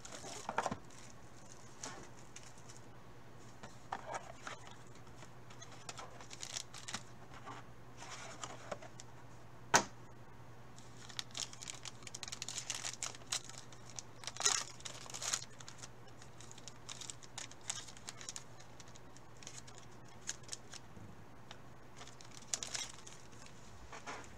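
Intermittent rustling and light clicks of trading cards and soft plastic card sleeves being handled, over a steady low hum. A single sharp click a little under ten seconds in stands out as the loudest sound.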